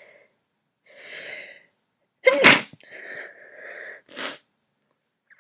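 A young woman sneezes once, loud and sharp, about two seconds in, after a short breathy build-up. Breathy sounds follow, then a brief sharp breath about four seconds in.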